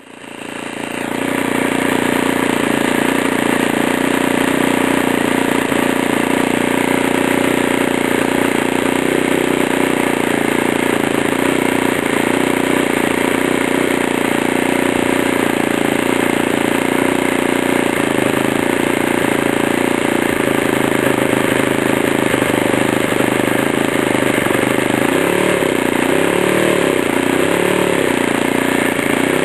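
Thunder Tiger .80 four-stroke nitro engine of an RC model airplane running steadily, fading in at the start. Its pitch rises and falls three times near the end.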